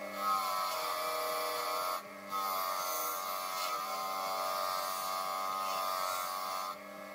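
Bench grinder running with the steel of a screwdriver held against its spinning wheel: a steady motor whine with grinding noise over it, its pitch wavering slightly as the metal is pressed on. The grinding dips briefly about two seconds in and again near the end.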